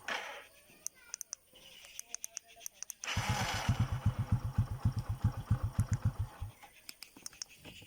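Hero Honda CD Deluxe's single-cylinder four-stroke engine cuts off, and a few short high ticks follow. About three seconds in the engine is started by the remote starter, starts promptly and idles with an even beat. It shuts off again about six and a half seconds in.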